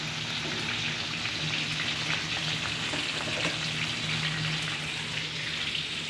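Whole fish deep-frying in hot oil in a large steel wok: a steady crackling sizzle.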